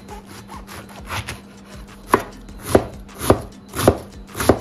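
Chef's knife cutting batavia lettuce on a bamboo cutting board: a few soft slicing strokes, then about two seconds in, five sharp chops of the blade hitting the board, a little over half a second apart.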